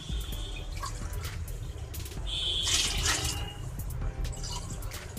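Water poured from a stainless steel bowl into a small steel tumbler, the splashing loudest for about a second around the middle, with light clinks of the steel vessels.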